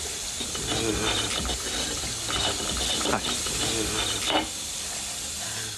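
Electric hand dryer blowing with a steady hiss and hum, cutting off at the end, with a couple of sharp clicks over it about three and four seconds in.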